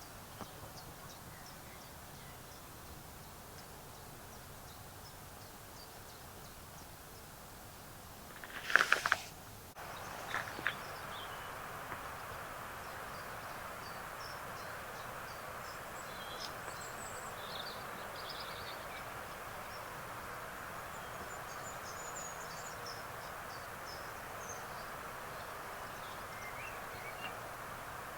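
Steady outdoor background hiss with birds chirping now and then in short, high calls. About nine seconds in there is a brief loud rustle or clatter, and the background level then steps up abruptly.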